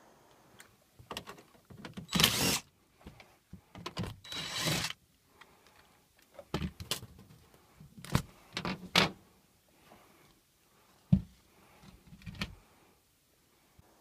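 Handling noises on a sheet-metal air handler cabinet while it is opened up: a couple of brief scrapes, then a run of sharp knocks and clicks of metal being handled.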